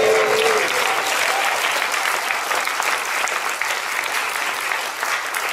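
Audience applauding, with a voice calling out over it at the very start; the clapping is loudest at first and slowly dies down.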